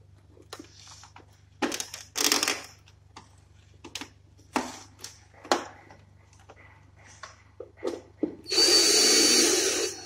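Plastic clicks and knocks as the front panel and air filters of a split air conditioner's indoor unit are handled and snapped into place, then a power drill runs in one burst of about a second and a half near the end.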